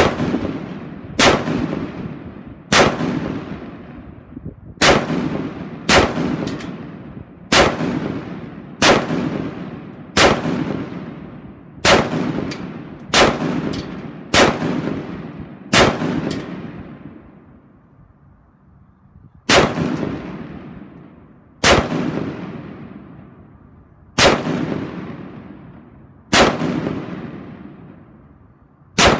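AR-style rifle fired semi-automatically in slow, aimed shots: about sixteen sharp reports, one every one to two seconds, each trailing off in a long echo. There is a pause of nearly four seconds about halfway through.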